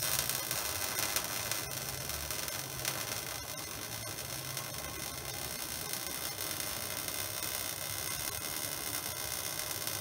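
MIG welding arc on a mild steel plate: a steady crackling, frying hiss with fine rapid ticks as the bead is laid.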